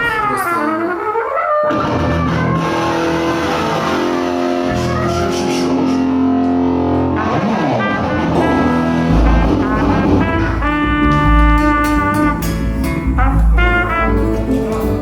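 Live rock band with a brass section (trumpet and trombone) playing at a soundcheck. Held brass notes for the first part, then the full band comes in with a heavy low end and a steady beat about nine seconds in.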